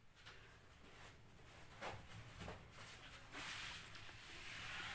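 Faint handling sounds of a lemon-soaked cookie being set into and turned in a bowl of powdered sugar: a few light taps, then a soft steady rubbing hiss in the last second and a half.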